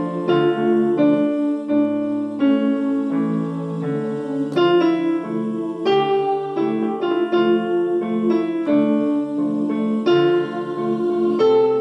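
Piano music: chords and melody notes played at a steady moderate pace.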